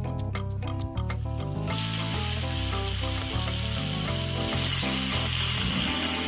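Food frying in hot oil, a steady sizzling hiss that comes in about one and a half seconds in, over background music.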